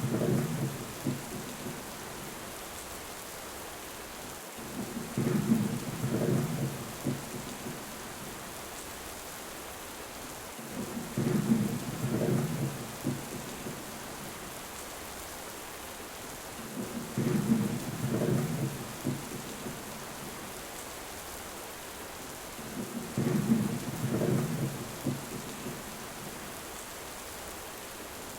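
Thunderstorm: steady rain hiss with a low rumble of thunder that comes back about every six seconds, five times, each lasting about two seconds.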